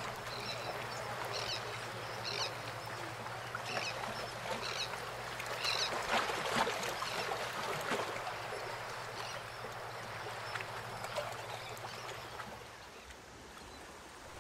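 Waterside harbour ambience: short, high bird calls repeating every second or so over a steady low hum and an even wash of outdoor noise. The hum and calls die away near the end, leaving a quieter background.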